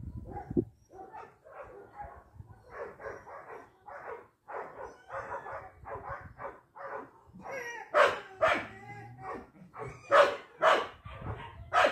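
Dog barking and yipping in a quick run of short calls, with several much louder barks in the last few seconds.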